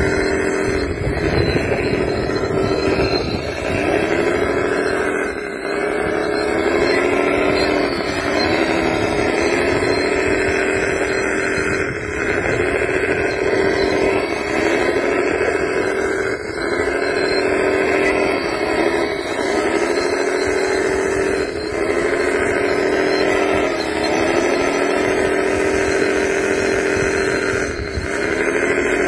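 Working sound of a radio-controlled wheel loader: a steady machine running note whose pitch dips and climbs back again about every two seconds.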